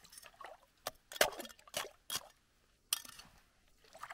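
A hooked burbot being hauled up by hand through a hole in lake ice: several sharp wet clicks and splashes from the line and the water in the hole, the strongest just over a second in.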